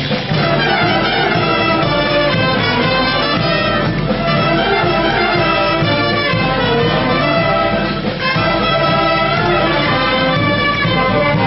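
Brass band with trumpets and trombones playing a continuous tune for traditional costumed dancers.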